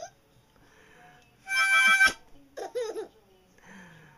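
A harmonica blows one short, loud chord about a second and a half in, and a baby answers with a short burst of laughter right after it.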